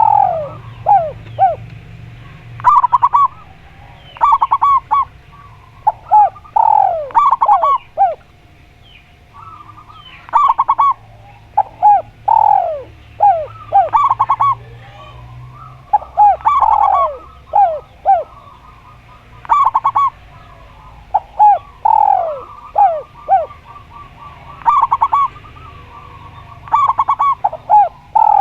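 Spotted dove and zebra dove cooing in turn: phrases of clipped, quick notes alternating with notes that fall in pitch, repeated every one to two seconds.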